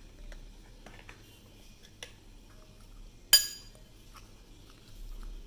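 A metal spoon stirring a powdery chocolate and milk-powder mix in a ceramic bowl: soft scrapes and light taps, then one sharp, ringing clink of the spoon against the bowl a little past three seconds in.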